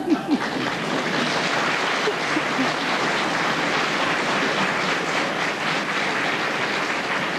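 Studio audience applauding steadily, with a little laughter in the first moment.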